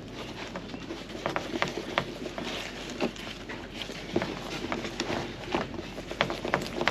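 Irregular light knocks, taps and scrapes of hand tools working teak trim off a fiberglass boat deck, a few sharp clicks a second at uneven spacing.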